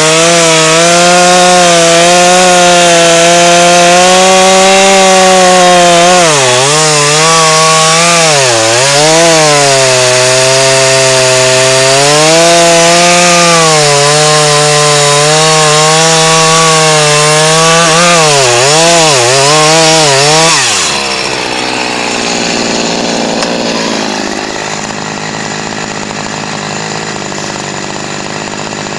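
Two-stroke chainsaw at full throttle cutting a white pine, its pitch sagging and recovering several times as the bar loads up in the cut. About three-quarters of the way through the throttle is let off and the saw drops to a much quieter idle.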